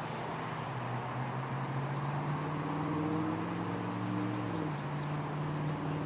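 A steady engine hum whose pitch drops a little about three-quarters of the way through, over a constant background hiss.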